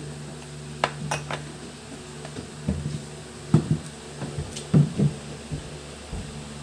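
A small cup clinks a few times as it is set down on a tabletop, followed by several dull knocks and bumps against the table, over a steady low hum.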